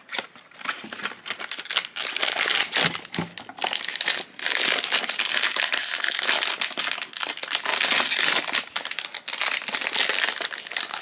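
A silver foil blind-box pouch torn open and crinkled by hand, a long dense crackling that runs for most of the stretch. A few light clicks of cardboard box handling come before it, about the first two seconds.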